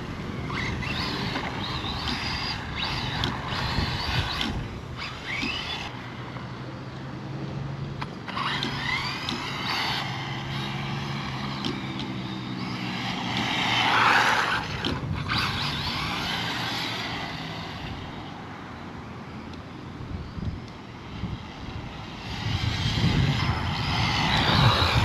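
Radio-controlled rally cars driving, their electric motors whining up and down in pitch as they speed up and slow down, with tyre noise on the ground. They are loudest about halfway through and again near the end.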